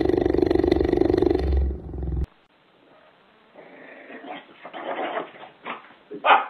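Cheetah purring loudly close up, a steady, finely pulsing rumble that stops about a second and a half in. Then come quieter scattered animal and room noises, with a short loud cry near the end.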